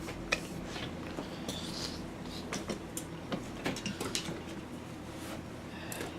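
Scattered light taps and knocks at an irregular pace, drumsticks on practice pads as the drummer gets set, not yet playing a beat.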